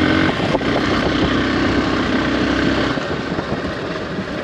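Motorcycle engine running under way on a gravel track, with wind buffeting the microphone. The engine note drops back about three seconds in as the rider eases off.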